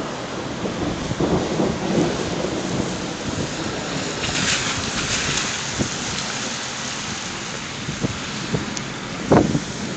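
Thunder rumbling over a steady wash of storm noise, with a sharp thump about nine seconds in.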